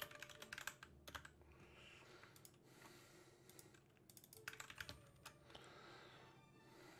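Faint computer keyboard typing: short runs of quick keystrokes separated by pauses.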